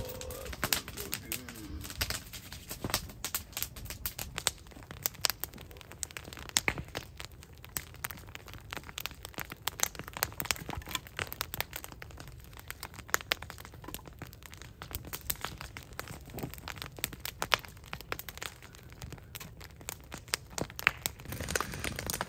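Wood fire crackling, with many irregular sharp snaps.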